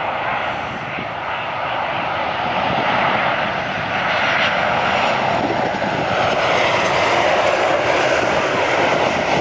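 Jet engines of a Ryanair Boeing 737 on final approach, flying low past and about to land: a steady jet rush that grows gradually louder as the plane nears.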